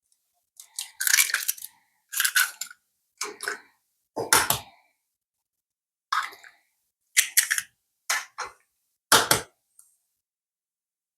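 Eggs being cracked against a bowl and broken open into it: a series of short, crunchy cracks, about eight or nine of them, spaced a second or so apart.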